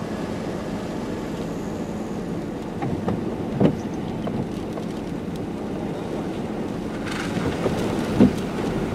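Steady wind rushing over the microphone in rain-wrapped storm wind, with two brief louder bumps, one about a third of the way in and one near the end.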